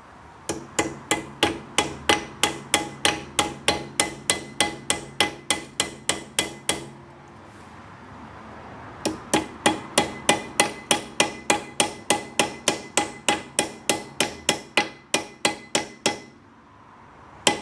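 Claw hammer tapping brake pad pins through a disc brake caliper to seat them: quick, even metal-on-metal blows with a ringing tone, about three a second. Two runs of blows with a pause of about two seconds between them, and one last blow near the end.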